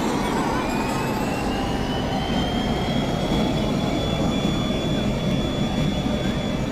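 A steady, loud, noisy rumble like a jet engine, with a thin whine that rises in pitch over about three seconds and then holds steady.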